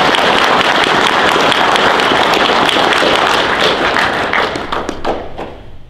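Audience applauding, a dense crowd of hand claps that tails off near the end.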